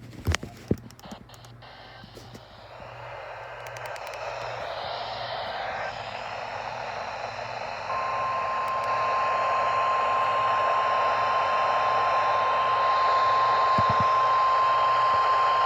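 Weather radio receiver static hiss, growing louder after a few clicks at the start. About 8 seconds in, the steady 1050 Hz NOAA Weather Radio warning alarm tone begins and holds, signalling that an emergency alert broadcast is about to follow.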